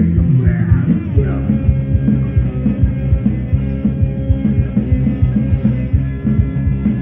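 Heavy metal band playing: electric guitar, bass and drums, with a steady, dense drum beat driving under the guitar and bass.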